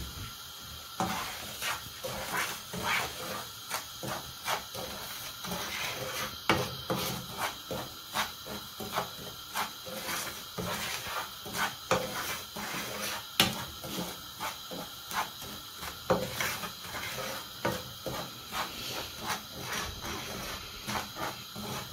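Wooden spatula scraping and stirring dry semolina in a pan while it dry-roasts: quick, repeated scraping strokes, roughly one to two a second, starting about a second in, over a faint steady hiss.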